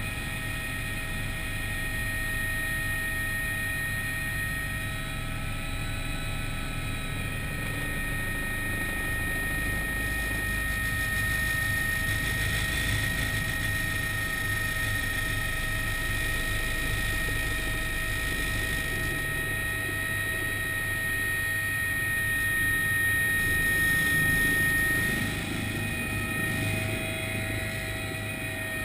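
Helicopter turbine and rotor heard from inside the cabin: a steady turbine whine over a low rotor rumble, on a descent to land on snow. About 25 seconds in, the whine fades and the noise drops slightly as the helicopter settles.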